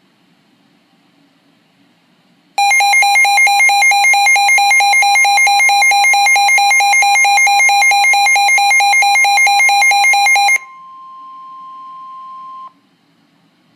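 Emergency Alert System attention signal: a loud two-tone alert starts suddenly about two and a half seconds in and pulses about four times a second for about eight seconds. A single quieter steady tone then holds for about two seconds before cutting off, announcing a severe thunderstorm warning.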